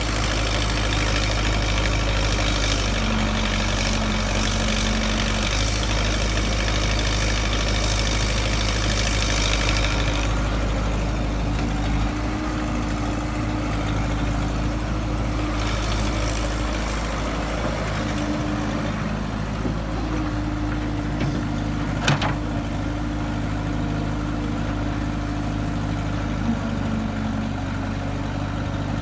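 Excavator engine running steadily with a low drone. A harsher high-pitched noise rides over it for the first ten seconds and briefly again later. A single sharp knock comes about 22 seconds in.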